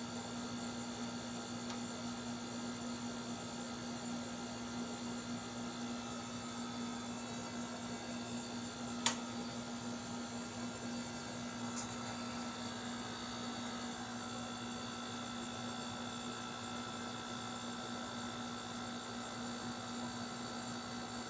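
A steady electrical hum with a faint hiss behind it. A sharp click comes about nine seconds in, and a fainter one about three seconds later.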